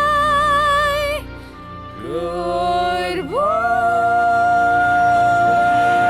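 Music with a singing voice holding long notes with vibrato. One held note stops about a second in; after a short dip a lower note starts, then slides up into a high note that is held with vibrato.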